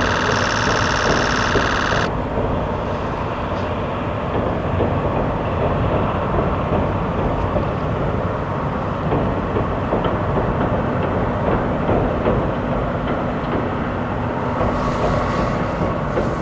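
C11 123, a 2-6-4 tank steam locomotive, sounds its steam whistle as a steady chord that cuts off about two seconds in. Then the locomotive and its three passenger cars run by with a dense, steady rumble of wheels and running gear.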